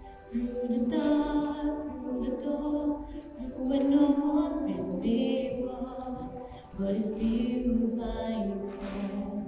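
A woman singing solo in a slow melody of long held notes with vibrato, the first note starting just after the start.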